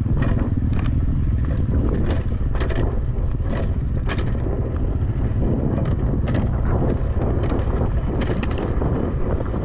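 Dirt bike engine running steadily while riding a trail, with frequent knocks and clatter from the tyres and bike over rough ground and wind on the microphone.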